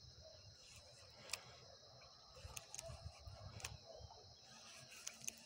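Faint dusk ambience by a lake: insects keep up a steady high-pitched chorus, broken by a few sharp clicks, the loudest about a second in.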